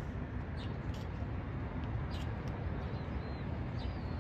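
A steady low rumble with a few short, high chirps from small birds over it and a couple of faint clicks.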